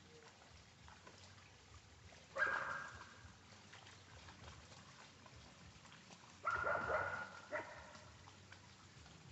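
A dog barks: two loud calls about four seconds apart, the second longer and followed by a short extra call, over the faint trickle of a shallow stream.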